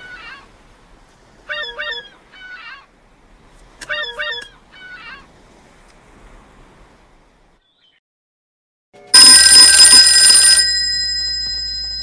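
A cartoon phone ringtone of quick chirping tones, played three times about every two and a half seconds and fading out. About nine seconds in, a much louder telephone bell rings once, its ring dying away slowly.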